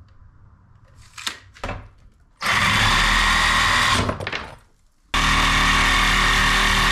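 DeWalt corded reciprocating saw (Sawzall) cutting spacer stock clamped in a vise. Two short trigger blips come first, then the saw runs steadily for about a second and a half and winds down. After a brief pause it starts again and keeps cutting.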